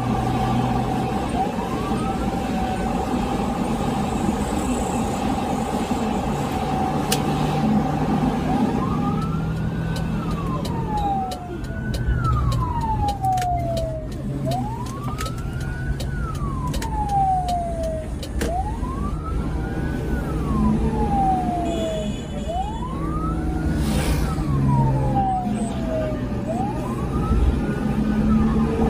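Ambulance siren wailing, heard from inside the cab over engine and road noise. From about a third of the way in, each wail rises quickly and falls slowly, repeating about every four seconds.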